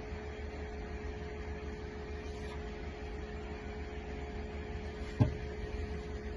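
Steady low hum with a faint steady tone through it, and one sharp knock about five seconds in.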